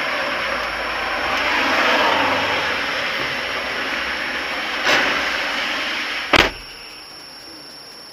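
Steady traffic and engine noise picked up by a car dashcam, with a light click about five seconds in and a single sharp bang about six and a half seconds in, after which the noise is much quieter.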